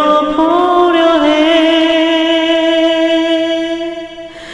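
A singing voice holds one long note, stepping up in pitch shortly after the start and then wavering slightly, before fading near the end.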